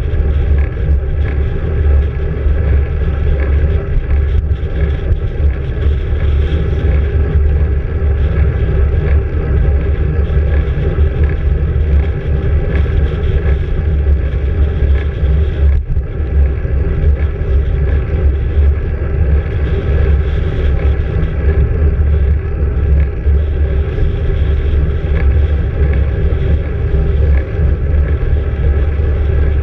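Wind buffeting the microphone of a handlebar-mounted camera on a moving road bike: a loud, steady low rumble.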